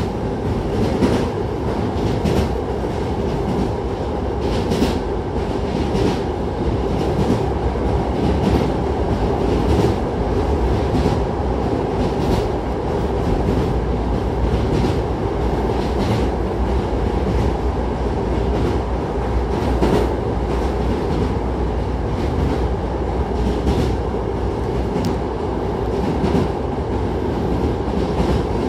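Inside a Hankyu Kobe Line electric train car running at speed: a steady low rumble of wheels on track with a sharp clack every second or two.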